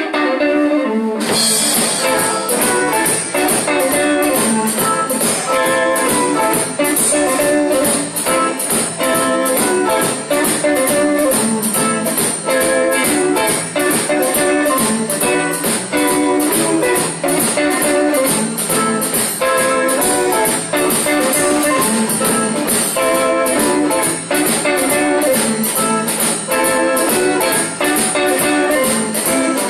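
Live blues band playing an instrumental passage: guitar over bass and a drum kit, the cymbals keeping a fast, steady beat. The music starts abruptly, with the drums coming in about a second later.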